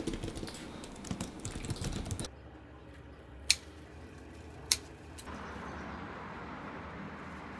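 Fingers typing on a computer keyboard, a quick run of key clicks. It stops a little over two seconds in, followed by two sharp snips of garden scissors cutting a cucumber from its vine, about a second apart, then a steady background hiss.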